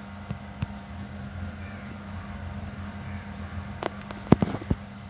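Steady low room hum with a few scattered sharp clicks, two early and a cluster later, the loudest about four seconds in.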